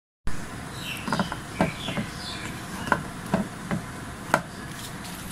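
A hinged flap cut into a plastic tank lid being handled and lifted: about seven sharp, irregular knocks and clicks, with a couple of short squeaks.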